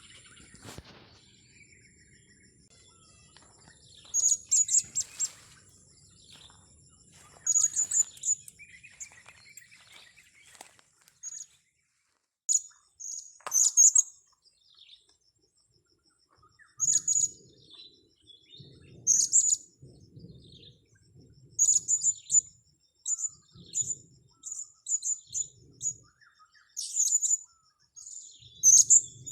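Blue-crowned hanging parrots (serindit) giving short, very high-pitched chirps in quick clusters, repeated every second or two. A thin steady high whine sounds underneath for the first ten seconds or so.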